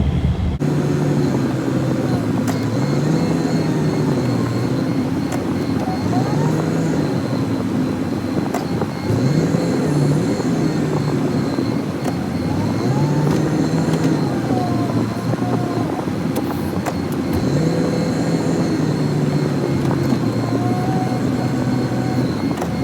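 Engine of a snowplow vehicle working an angle blade, its revs climbing and dropping again every few seconds as it pushes snow, with a faint steady high tone over it.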